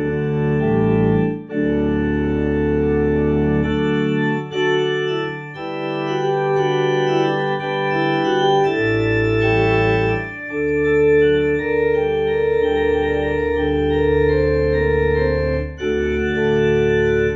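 A Technics electronic home organ playing a traditional hymn in sustained chords, with short breaks between phrases. The deep bass drops out about four seconds in and comes back about ten seconds in.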